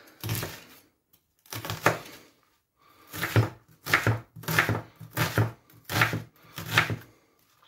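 Kitchen knife chopping a red onion on a wooden cutting board: about eight cuts, each a knock of the blade through the onion onto the board. They come singly at first, then in a steady run of roughly one cut every two-thirds of a second from about three seconds in.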